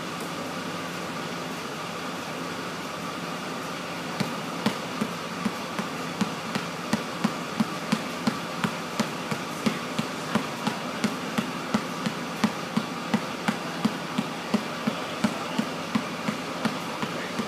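Basketball dribbled hard on a gym floor in a right-left V-dribble, a steady rhythm of about two bounces a second that sets in about four seconds in, over a steady background hum.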